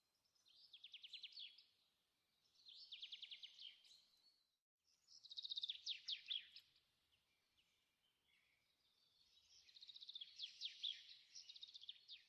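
Faint songbird song: four rapid, high trilled phrases, each a second or more long, with short pauses between them.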